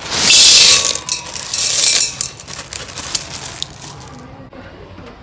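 Dry macaroni being poured and rattling into a steel cooking pot, with a loud clattering rush at the start and scattered rattles after it.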